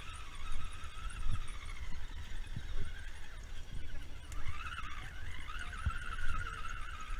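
Whine of a quadcopter drone's propellers, wavering up and down in pitch as the motors adjust, with wind rumble and buffeting on the microphone.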